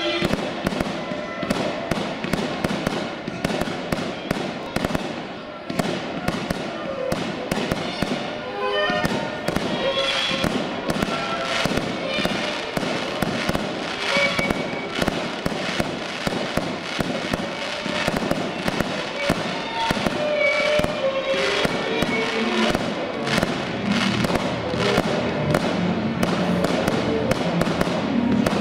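A fireworks display firing continuously: rapid bangs and crackles, several reports a second, as fountains and aerial shells go off in quick succession. Music plays underneath, its melody plainer in the second half.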